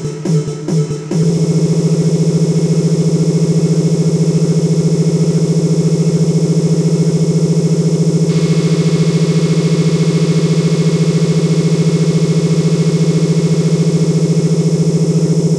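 Synthesized imitation of MRI scanner noise made with a music app. A quick pulsing of about three or four beats a second stops a second in and gives way to a steady, loud, low electronic buzz. The buzz's upper hiss thins about eight seconds in.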